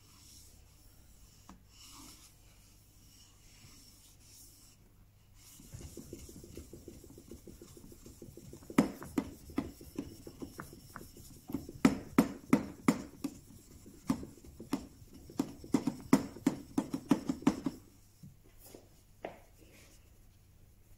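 The flat back of a steel chisel rubbed back and forth on a fine 10,000-grit waterstone covered in nagura slurry, lapping the back toward a mirror polish. A gritty rubbing with sharp clicks, about three a second, starts about six seconds in and stops near the end.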